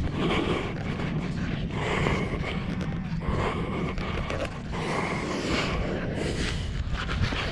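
A Cape fur seal held in a net, giving hoarse, breathy huffs several times over a few seconds, over a steady low rumble.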